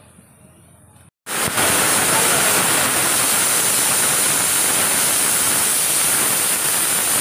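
Water poured in a stream into a stainless-steel cooking pot: a loud, even rushing splash that starts suddenly after a short break about a second in.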